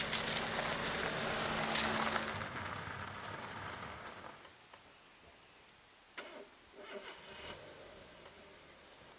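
A car's engine running, with crackling from the tyres on a rough dirt track. The engine hum stops after about two and a half seconds and the sound fades away. A few short knocks follow near the end.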